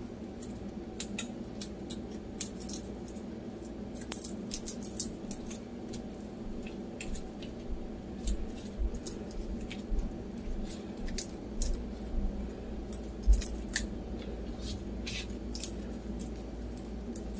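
Garlic cloves being broken from the bulb and peeled by hand: irregular dry, papery crackles and small snaps of the skins, over a steady low hum.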